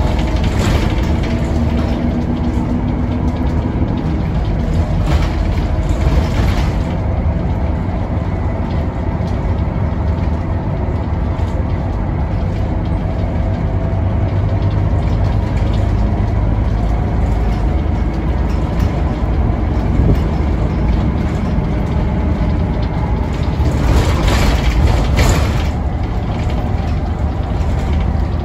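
Scania K94UB city bus under way, heard from the rear of the saloon: its rear-mounted 9-litre Scania DC9 turbo diesel running steadily under road noise. Brief bursts of hiss come about five seconds in, again a second later, and near the end.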